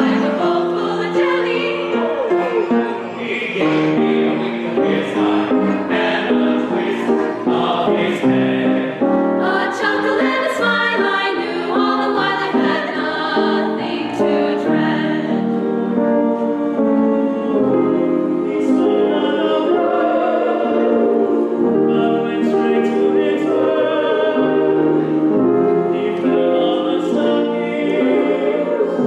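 A choir singing a Christmas carol, many voices holding chords.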